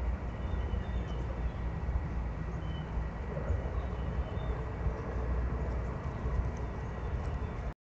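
Steady low outdoor rumble with a few faint, short high bird chirps over it; it cuts off suddenly near the end.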